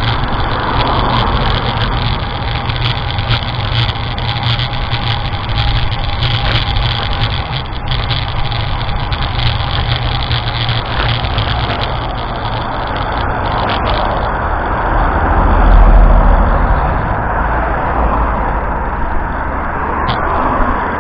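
Strong wind blowing hard over the microphone as a steady rushing rumble, swelling to its loudest gust about three-quarters of the way through.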